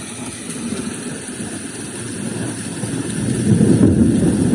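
Reacher R2 white noise machine playing its thunderstorm sound at maximum volume: steady rain noise with a deep rumble that swells louder about three seconds in.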